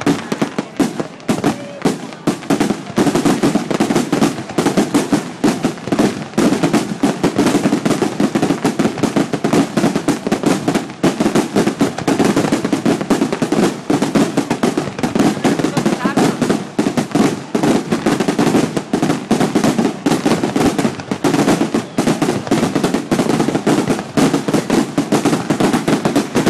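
Fireworks at close range: a dense, rapid barrage of bangs and crackles that builds over the first couple of seconds and then keeps up without a break.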